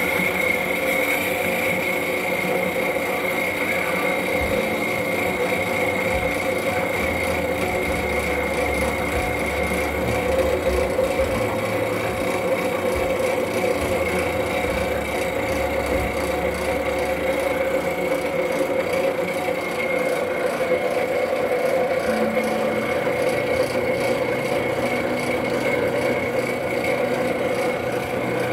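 LeBlond engine lathe running under power while cutting a thread, with a steady gear whine.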